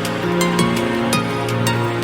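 Background music: an electronic track with sustained synth notes over a regular beat.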